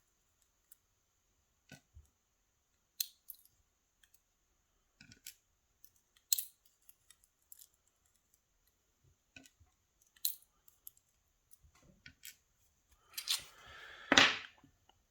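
Small metal lock parts and tools being handled: scattered light clicks and ticks as pins and springs are picked up and set down. Near the end there is a louder scraping rustle ending in a sharp knock.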